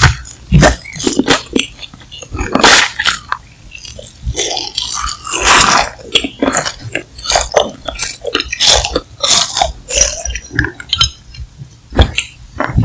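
Close-miked eating sounds: biting and chewing a spicy mala snack sheet, with uneven wet smacks and sharp mouth clicks.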